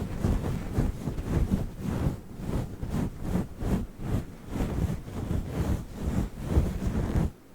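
Fluffy fur microphone cover being rubbed and scratched directly on the microphone: a dense, low, rumbling rustle in quick irregular strokes, breaking off briefly near the end.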